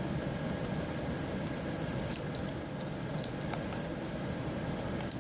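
A lock pick raking the pins of a Master Lock 5-pin padlock, giving irregular light metallic clicks and scratches.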